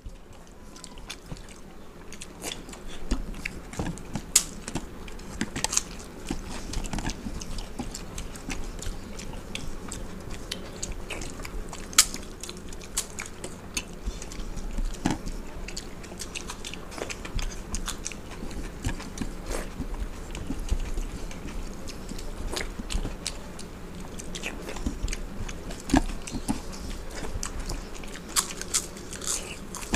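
Two people eating panta bhat (watery fermented rice) by hand: chewing, with fingers mixing the wet rice on steel plates and scattered sharp clicks throughout. Occasional crunches of fried papad.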